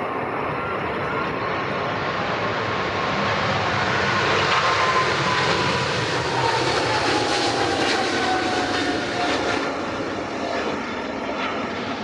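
An airliner passing close by. Its engine noise swells to a peak about halfway through and then eases, while a whining tone slides down in pitch as it goes past.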